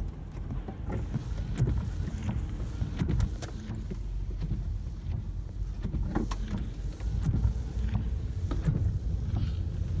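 Typhoon wind and rain heard from inside a car: a steady low rumble of wind against the car, with scattered sharp taps of rain on the body and glass.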